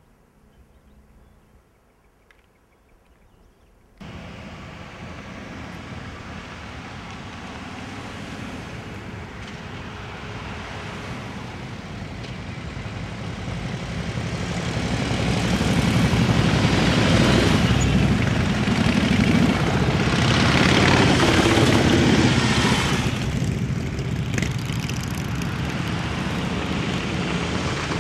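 About four seconds of quiet, then a procession of touring motorcycles riding slowly past, their engines running and growing louder as the bikes come closer.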